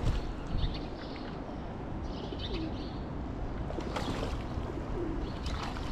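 Wind rumbling on the microphone, with faint high bird chirps twice, about half a second in and again around two seconds in.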